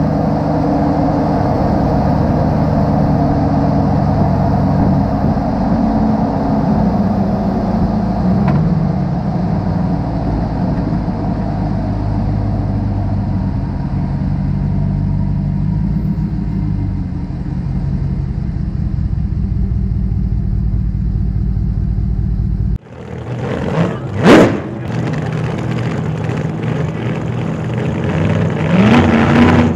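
A 2015 Ram 1500 pickup driving, heard from under the truck near the rear axle and exhaust pipes: a steady exhaust drone with tyre and road noise, the engine note shifting slightly in pitch. About 23 seconds in it cuts off abruptly to a different sound with a loud rising sweep.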